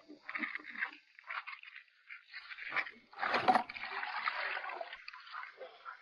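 Water poured into a plastic bucket holding fish and crabs, splashing and gurgling in irregular bursts. The heaviest pour comes about three to five seconds in.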